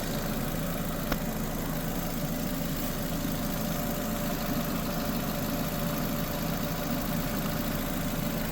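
A 2006 Nissan Sentra's 1.8-litre four-cylinder engine idling steadily as it warms up while its cooling system is burped after a water pump replacement. A single short click comes about a second in.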